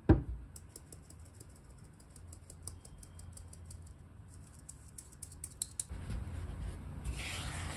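A sharp knock, then flour and almond powder sifted through a fine mesh sieve into a mixing bowl, with quick light ticks and rustles of the sieve. About six seconds in, a spatula scrapes and folds the flour into the butter batter in the bowl.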